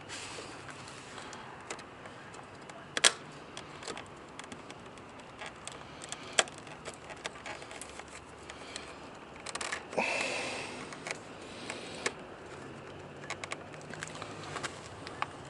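Scattered clicks and knocks of hard plastic as a shaved-down USB charger socket is worked and forced into a tight hole in a plastic dash panel. The sharpest click comes about three seconds in, and a short scraping squeak comes about ten seconds in.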